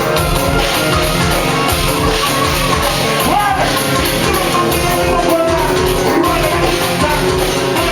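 Loud Caribbean party music with a heavy, steady bass beat and a singing voice over it.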